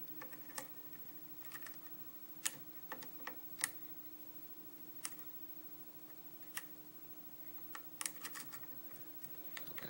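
Lock pick working the pins of a 6-pin Arrow lock cylinder under tension: scattered small clicks and ticks at irregular intervals as the pins are lifted and set.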